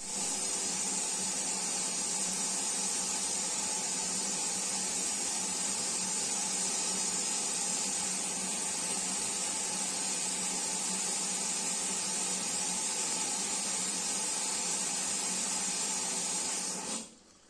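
Beko washing machine taking in water, a steady hiss of water spraying into the drum through the inlet, cutting off suddenly near the end.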